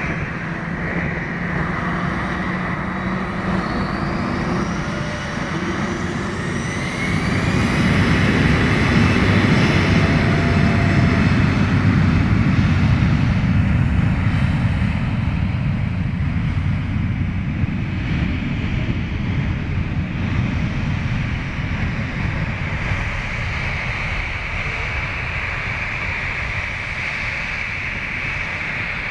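Jet airliner engines spooling up with several rising whines, then a loud deep roar about seven seconds in that peaks and slowly eases off, typical of a jet taking off.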